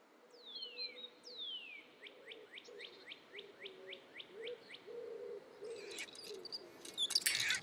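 Birdsong effects in a children's show: two long falling whistles, then a run of short falling chirps at about three a second over a soft low cooing. Near the end comes a burst of rustling, crackling noise.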